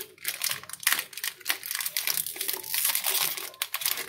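Dense crinkling and crackling noise made of many quick crackles, continuing without a break.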